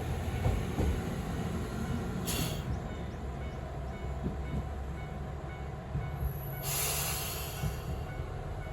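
Diesel railcar running with a steady low rumble, broken by two short bursts of hiss, one a couple of seconds in and a longer one later.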